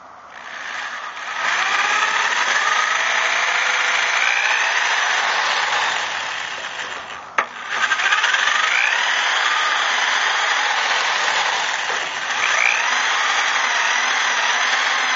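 Cordless drill with a twist bit running under load, grinding into the steel pivot of a pickup's tailgate strap bracket, with a wavering whine from the bit cutting metal. It eases off briefly about halfway, with one sharp click, then bites in again.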